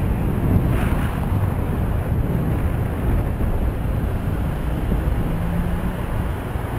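Wind buffeting the microphone of a moving rider, over the low rumble of road traffic.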